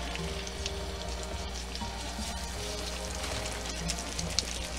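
Marinated beef ribs sizzling in hot canola oil in a stainless steel frying pan, a steady fine crackle of searing meat. A steady low hum runs underneath.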